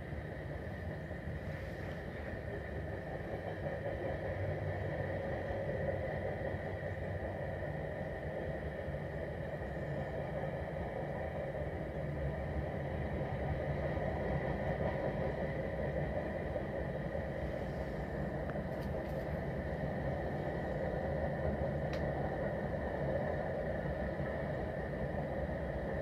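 CSX freight train cars rolling past: a steady rumble of wheels on rail, growing slightly louder, with a faint steady high ring.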